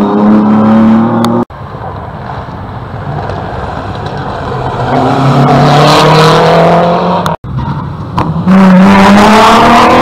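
Rally car engines revving hard as the cars pass at speed, their pitch climbing through the gears. The sound breaks off abruptly between several separate passes.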